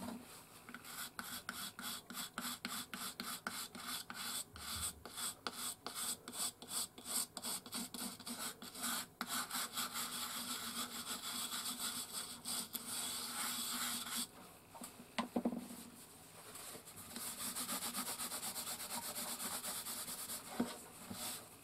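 Cloth and a small brush rubbing over a carved wooden case, buffing the finish into the wood: quick back-and-forth strokes for the first several seconds, then steadier continuous rubbing, with one light knock about two-thirds through.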